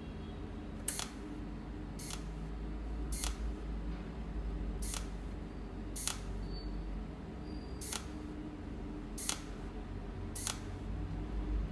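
Cold welding machine's tungsten electrode firing pulsed arcs onto a steel part: a sharp snapping click with each weld spot, eight in all, about one every second or two, over a low steady hum.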